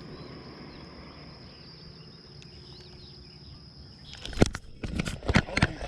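Faint outdoor ambience with a few soft bird chirps over a steady high hum, then a quick run of sharp knocks and handling clatter about four seconds in.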